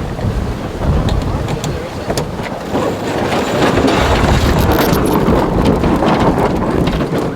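Sailboat tacking: the jib flogging as its sheet is released, mixed with wind buffeting the microphone and scattered clicks from the deck gear. The noise swells about three seconds in.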